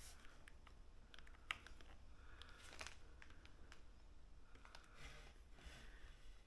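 Near silence: faint room tone with a few soft handling clicks, one about a second and a half in and another near three seconds.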